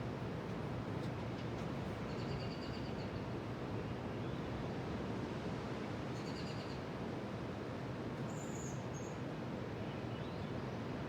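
Steady low roar of ocean surf, with short high chirping bird calls over it about two seconds in, around the middle, and a higher one a little later.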